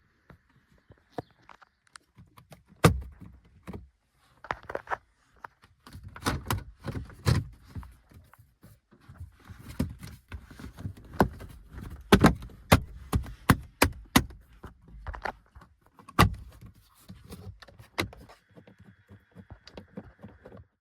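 Irregular clicks, knocks and thunks inside a car cabin, some sharp and loud, coming in uneven clusters.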